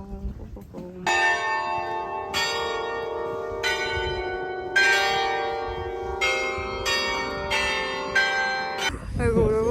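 Church bells ringing a slow sequence of about eight strikes, each a different note, one every second or so, the tones ringing on and overlapping. They cut off sharply about nine seconds in.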